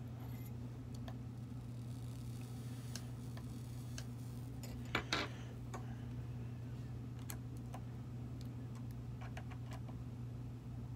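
Small metal clicks and ticks of a vape atomizer's parts and small tools being handled during a coil build, with two sharper clicks about five seconds in, over a steady low hum.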